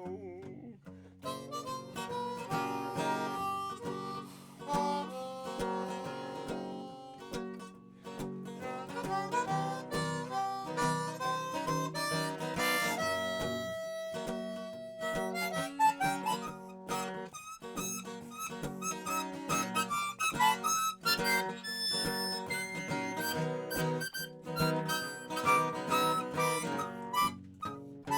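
Harmonica playing a melody over strummed acoustic guitar in an instrumental break of a folk song, with one long held harmonica note about halfway through.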